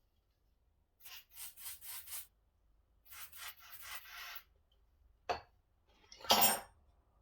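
Short scraping and rubbing strokes on the old power hacksaw's parts, in two quick runs of about four strokes a second, then a sharp click and a louder scrape near the end.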